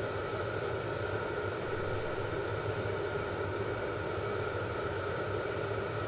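Portable diesel air heater running at full output, its fan and burner making a steady, even noise.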